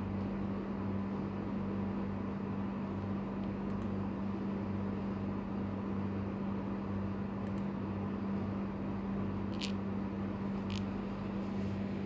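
A steady machine hum with a faint low throb pulsing underneath it, and four faint sharp clicks spread through it.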